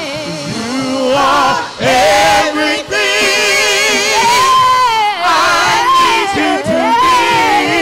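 Gospel praise team of mixed male and female voices singing a worship song together, long held notes with vibrato.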